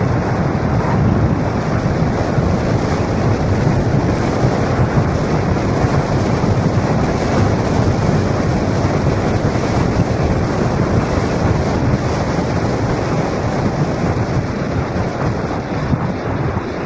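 Steady, loud wind rush buffeting a helmet-mounted camera's microphone as a mountain bike rides fast down a dirt and gravel track, mixed with the rumble of the bike on the rough ground.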